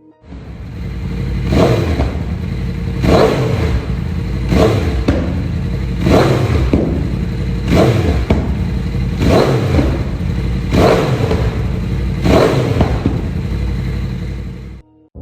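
Yamaha YZF-R1 (RN49) crossplane inline-four breathing through an Akrapovič exhaust, revved about eight times in a row, roughly one rev every second and a half, each rising and falling back to idle. It cuts off abruptly just before the end.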